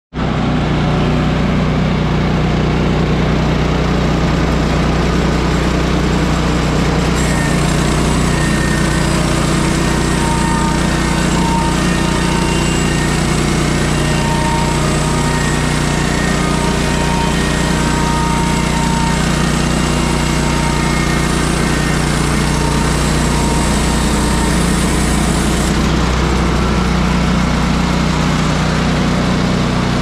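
1953 Detroit Diesel 3-71, a three-cylinder two-stroke diesel, running steadily under power as a sawmill power unit. A higher hiss joins from about seven seconds in until near the end.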